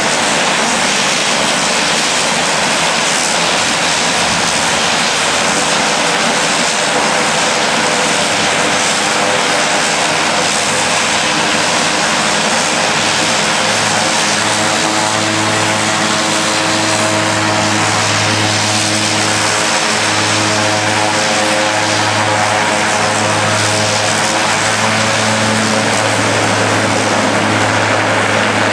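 Single-engine propeller plane running its engine on the ground while it holds at the head of the runway before take-off: a steady loud propeller drone, with a low hum that comes up clearly about halfway through.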